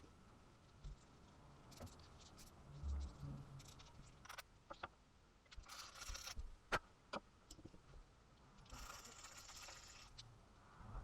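Faint handling noises: scattered light clicks and taps, with two brief scraping sounds, one about halfway through and one near the end.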